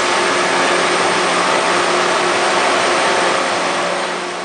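Large CNC planer mill running under power: a steady loud mechanical whir with a low hum, fading away near the end.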